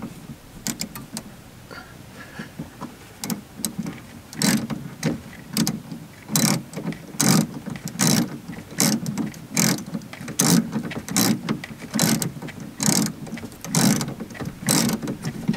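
Socket ratchet wrench clicking in short repeated strokes, about one every second, as a Cummins Onan QG 4000 RV generator's fuel filter is unscrewed. The clicks are faint for the first few seconds, then come stronger and evenly spaced.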